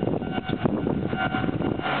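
Japanese railway level-crossing warning bell ringing with its steady clanging tone while the signals flash for an oncoming train, partly buried under rough buffeting wind noise on the microphone. The bell comes back clearly near the end.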